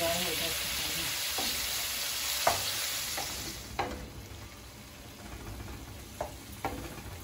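Mutton mince sizzling as it fries on a tawa, stirred with a spatula that scrapes and clicks against the pan a few times. The sizzle is strongest for the first three seconds or so, then dies down.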